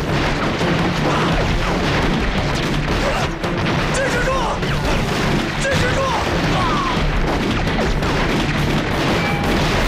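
Staged battle sound: repeated explosions and gunfire under dramatic background music, with men shouting in the middle.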